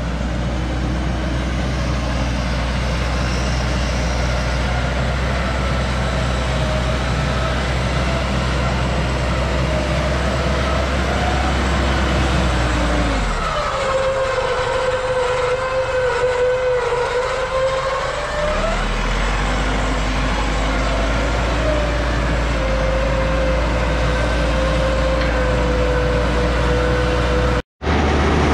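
Electric off-road winch motor whining steadily as it hauls a 4x4 on its cable, over a running engine. The whine sags a little in pitch, as under load, about halfway through, and the deep engine hum drops away for several seconds there.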